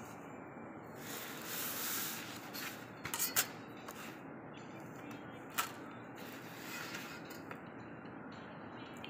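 Faint handling-type noises over a low background hiss: a soft rustle, then a quick cluster of sharp clicks about three seconds in, and a single click a couple of seconds later.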